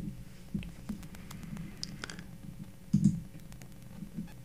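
Faint, scattered computer mouse clicks, with a few soft low knocks, the loudest about three seconds in.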